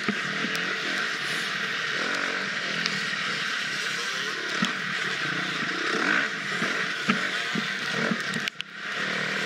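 Husqvarna FX 350's single-cylinder four-stroke engine being ridden off-road, its revs rising and falling continuously, with scattered sharp knocks. The engine note drops away briefly near the end.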